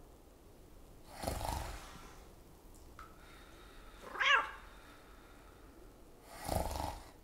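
Slow, deep breathing: two long heavy breaths about five seconds apart, with a short, high, wavering cry between them.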